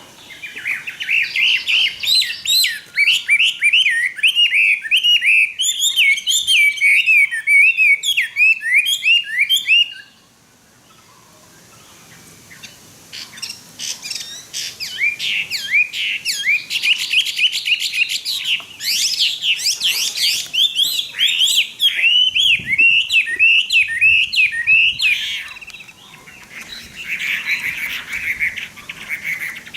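Caged Chinese hwamei singing a loud, rapid run of varied whistled phrases. The song breaks off about ten seconds in, starts again a couple of seconds later, and turns quieter near the end.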